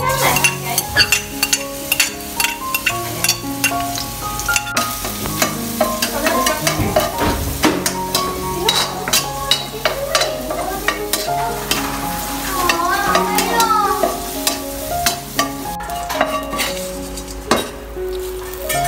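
Minced garlic sizzling as it fries in oil in a nonstick wok, with a metal spoon stirring and scraping the pan in frequent sharp clicks.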